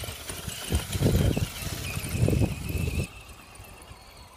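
Electric motor of an Axial SCX10 Deadbolt RC crawler whining steadily under throttle, cutting off about three seconds in. Two low rumbling bursts come through around one second and two and a half seconds in.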